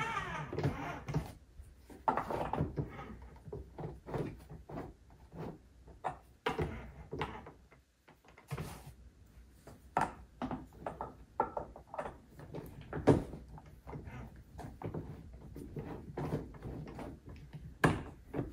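Irregular knocks and clicks of the hard plastic parts of a kids' electric ride-on car being handled and fitted together during assembly.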